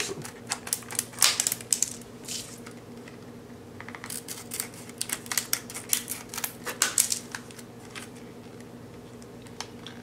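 Scissors snipping and crunching through a stiff plastic blister pack, in two runs of quick sharp cuts: one in the first two seconds or so, another from about four to seven and a half seconds in. A steady low hum sits underneath.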